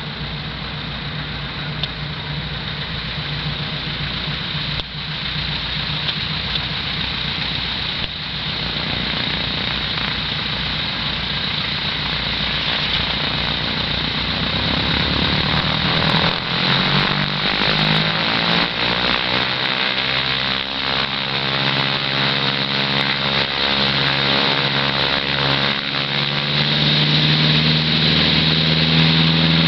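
Two piston engines of a Piper twin-engine light aircraft running at low power as it taxis, a steady propeller drone that grows louder as the plane approaches. The engine note changes about halfway through.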